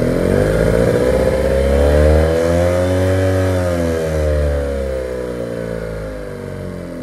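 2013 Yamaha 8 hp four-stroke outboard motor, running on a swapped-in 9.9 hp carburetor, revved up by its tiller throttle and let back down. The pitch climbs for about three seconds, holds briefly, then falls back toward idle over the next few seconds.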